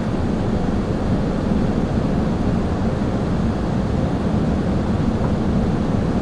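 Steady low rumble inside the cabin of an Airbus A380 airliner during its landing: engine and airflow noise, even in level throughout.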